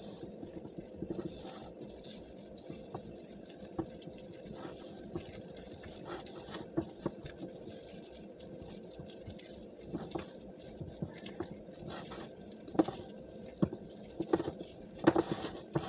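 Bread dough being mixed by hand in a ceramic bowl, flour being worked into the wet ingredients: soft, irregular pats and light taps.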